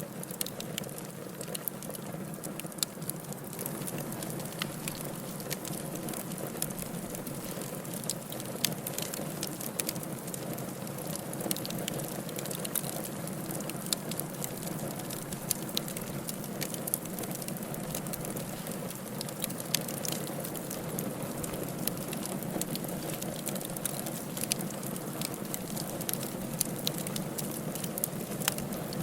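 Firewood burning in a fireplace: a steady hiss of flames with frequent small crackles and pops scattered throughout.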